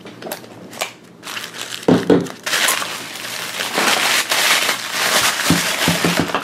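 A few clicks of handled plastic, then from about two and a half seconds in, continuous crinkling of tissue paper and a thin plastic wrapper being pulled open as a toy ball's contents are unwrapped.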